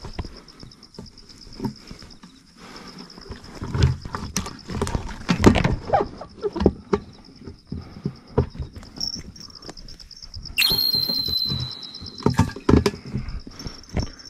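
Handling noises on a plastic keep bucket: irregular knocks, rustles and scrapes as a live eel is pushed through the hole in the lid, with a brief sharp squeak about ten seconds in. A steady, pulsing high trill runs behind.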